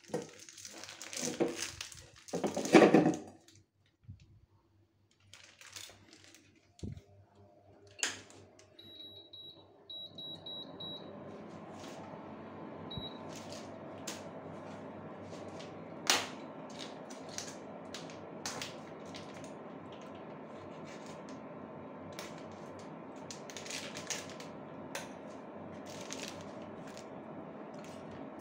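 Plastic wrapping handled and a frozen block set into a stainless steel pan, with the loudest knock about three seconds in. Several short high beeps from an induction cooktop's touch controls follow, then the cooktop runs with a steady hum and fan hiss, dotted with occasional sharp clicks.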